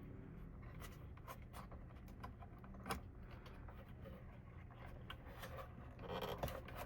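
Faint scattered clicks and taps of small parts being handled inside an open desktop computer, with one sharper click about three seconds in and some rustling near the end.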